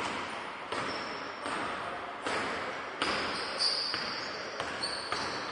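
Basketball being dribbled on an indoor court, a bounce about every two-thirds of a second, each echoing in the gym, with a few short high shoe squeaks on the floor.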